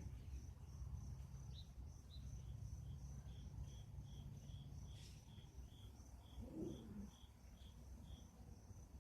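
Crickets chirping in a steady, even pulse, about three chirps a second, with a second, lower series of chirps joining in from about three seconds in until near the end, over a faint low rumble.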